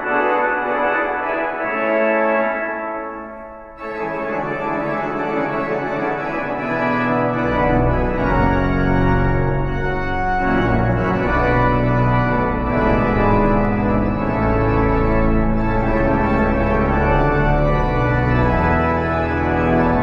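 1912 Harrison & Harrison pipe organ of four manuals and pedals playing loud sustained chords. Near four seconds in the sound fades and a new chord enters, and from about seven seconds deep pedal notes join and carry on beneath the chords.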